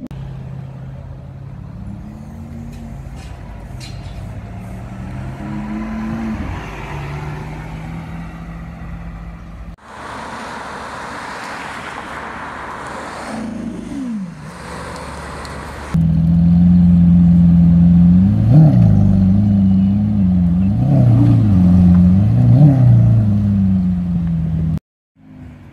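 Lamborghini Aventador 6.5-litre V12 exhaust, heard in three takes: first idling with a few light revs, then the car driving and accelerating past on a road. Last comes a much louder steady idle blipped three times, each rev rising and falling quickly, before it cuts off.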